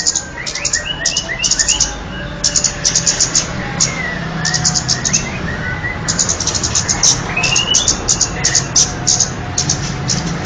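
Bird-lure recording of kemade birds: repeated bursts of rapid, very high chirps with short gliding whistled notes between them. A steady low hum runs underneath.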